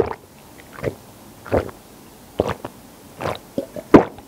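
A person gulping down a glass of cola, one loud swallow after another in a ragged series, the last one the loudest.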